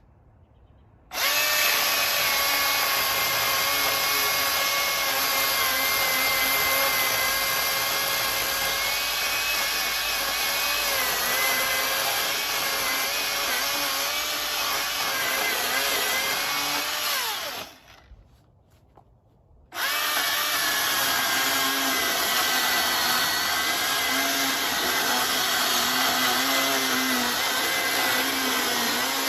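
Milwaukee M18 FUEL 16-inch battery chainsaw's brushless motor running at speed, its whine wavering in pitch as it cuts wood. It starts about a second in, stops for about two seconds past the middle, then starts again.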